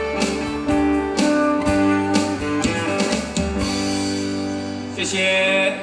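Live band music: electric guitars and bass playing a song, with chords and sustained notes changing every second or so.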